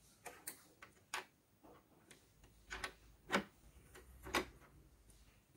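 Faint, irregular clicks and taps of small plastic printer parts being handled while a timing belt is fitted onto the gears, with the two loudest clicks past the middle.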